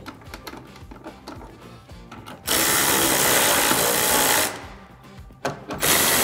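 Cordless power ratchet running in two bursts of about two seconds each, driving the taillight mounting bolts back in. It is preceded by light clicks of the taillight being handled into place.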